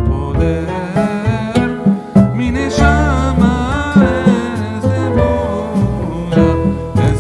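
Background music: a plucked string instrument with a wavering singing voice over it.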